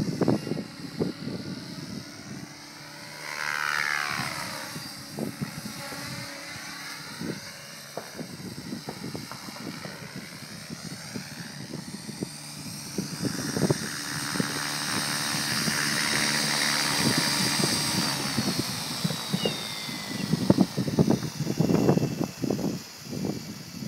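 Align T-Rex 600 Pro radio-controlled helicopter in flight, its rotor and drivetrain humming. The pitch sweeps up and then down as it passes about four seconds in. The sound grows louder from about fourteen seconds, and near the end a high whine falls in pitch as the helicopter comes down to land. Gusts of wind rumble on the microphone near the end.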